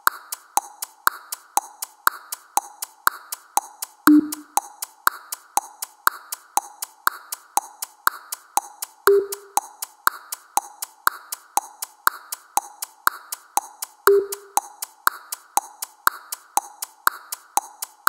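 Countdown timer sound effect: a steady clock-like tick-tock, about two clicks a second alternating high and low. A short low beep sounds every five seconds, three times, and the later two are a little higher in pitch.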